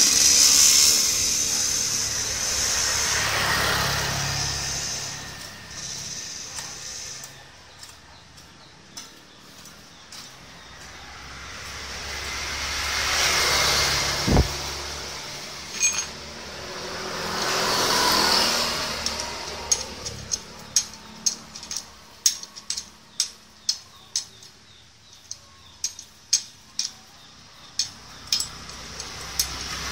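Passing road traffic, rising and fading away three times. About halfway through comes a single low thud, and in the last ten seconds a run of irregular small ticks.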